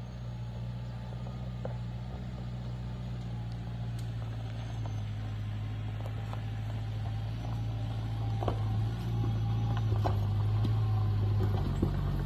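A four-wheel-drive's engine running at low revs as it crawls over a rocky track toward the listener, growing gradually louder, with occasional light clicks.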